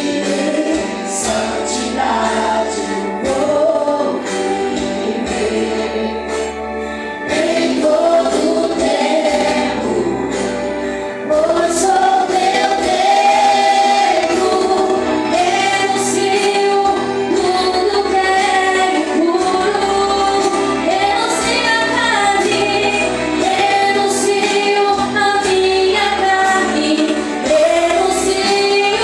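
A worship group singing a gospel song with female voices leading, over instrumental accompaniment. It gets louder about eleven seconds in.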